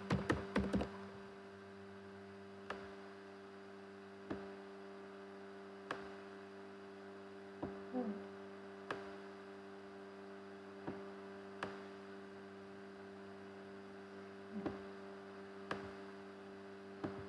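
Steady electrical mains hum, with a quick run of computer keystrokes in the first second and then single sharp clicks every second or two, typical of a mouse being clicked.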